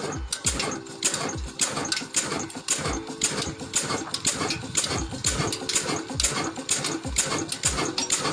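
Old stationary diesel engine with large twin flywheels running, knocking in an even beat of about four strokes a second with heavier low thumps among them.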